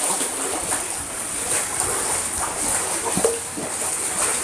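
Pool water splashing and lapping steadily as a Boston terrier swims, with a brief dog whine about three seconds in.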